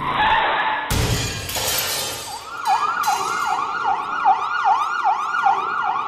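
A car crash: a sudden heavy impact about a second in with a shattering spill of glass and debris. An emergency-vehicle siren in a fast yelp then rises and falls about two and a half times a second.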